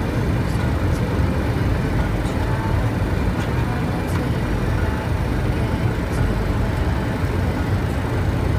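Steady rumble of a Boeing jetliner's cockpit on final approach, from airflow and the engines, with a few faint clicks.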